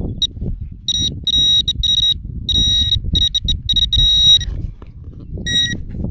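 Metal detector sounding a high-pitched target tone in a run of broken beeps, then one short beep near the end: the signal of buried metal, a target reading 89. A low rough noise runs underneath.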